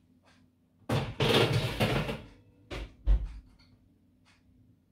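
Metal baking tray scraping and rattling as it slides into an oven for about a second, then two knocks as the oven door is shut. The second knock, about three seconds in, is the loudest.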